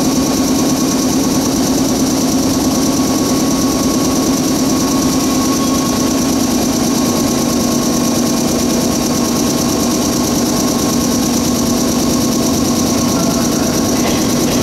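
JR 115 series electric train standing at the platform, its onboard machinery making a steady mechanical hum with a held whine. Near the end the train begins to pull away on departure.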